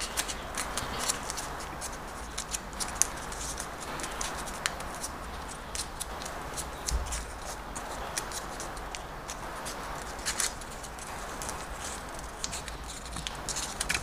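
A dollar bill being folded and creased by hand: irregular small crackles and rustles of the banknote paper over a steady background hiss.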